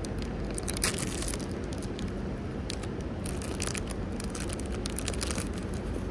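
Thin clear plastic food bag being torn open by hand and crinkled as a baked sweet potato is pulled out. There is a burst of sharp crackles about a second in, then a longer run of crinkling in the middle, over a steady low rumble.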